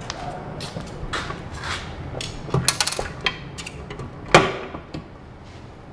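A run of clicks and knocks from hands working the fire alarm equipment as the system is switched on, the loudest a sharp knock about four seconds in.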